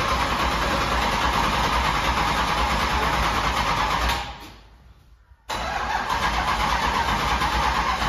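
Euro NASCAR stock car's V8 engine running at its first start-up of the season. About four seconds in, it dies away to near quiet. A second and a half later the engine sound comes back suddenly and runs steadily.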